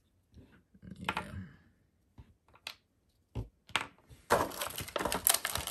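Small plastic action-figure parts clicking and tapping as they are handled. From about four seconds in, a denser, louder crackle of plastic being handled, like the clear blister packaging tray crinkling.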